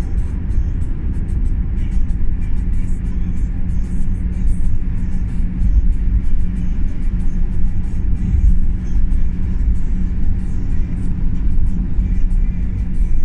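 Steady low rumble of a car's engine and tyres heard from inside the cabin while driving, with music playing over it.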